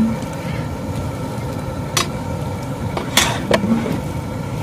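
A long metal stirring paddle turning cut brinjal pieces in a large cooking vessel, knocking against the pot a few times about two and three seconds in, over a steady low rumble.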